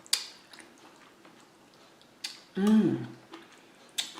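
Close-miked eating sounds: a few sharp clicks, the loudest right at the start, and a short "mmm" of enjoyment that rises and then falls in pitch about two and a half seconds in.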